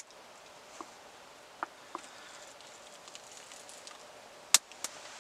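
Wood fire in a Bushbox Ti twig stove crackling: a few sharp pops over a faint steady hiss, the loudest pair about four and a half seconds in.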